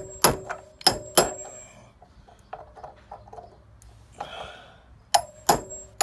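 Claw hammer striking a steel socket used as a drift, driving a wheel bearing into a worn motorcycle hub shimmed with can metal: sharp metal-on-metal blows that ring. Three blows come in the first second and a half, lighter taps follow in the middle, and two more blows land close together near the end.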